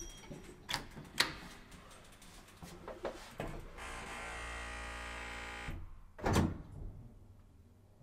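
Elevator car doors and machinery: a couple of sharp clicks near the start, then a motor hums steadily for about two seconds midway, and a heavy thump comes about six seconds in.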